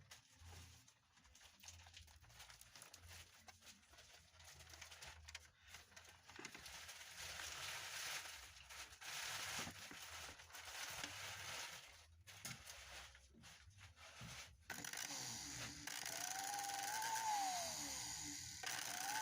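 Faint crackling and rustling, then from about fifteen seconds in the blender's brushed motor runs on a direct wire connection with a whine that rises and falls in pitch. Its carbon brush is sparking, which is not normal: the brushes are the suspected fault.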